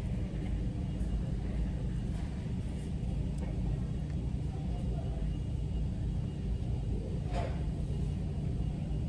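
Steady low drone of a ferry under way, the LNG-fuelled ship's engines and hull vibration carrying through the deck. A single light clink of tableware comes about seven seconds in.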